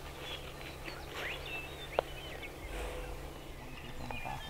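Small birds chirping with many short, sliding whistles over a low, steady background rumble, with one sharp click about two seconds in.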